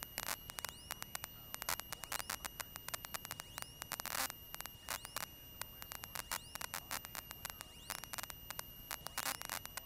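Cessna 172 headset intercom and radio audio with no one transmitting: a low hiss with irregular crackling clicks over a steady high-pitched whine.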